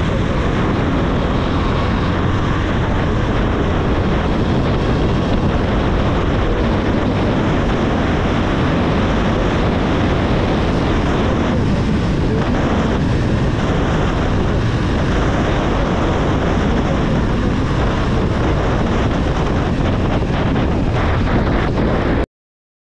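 Steady wind rushing over the microphone of a moving motorcycle, with the engine running underneath; it cuts off suddenly near the end.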